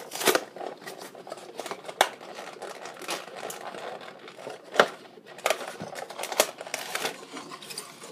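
Toy packaging being worked open: a string of irregular clicks, taps and crinkles of box and plastic, with a louder click a little before the five-second mark.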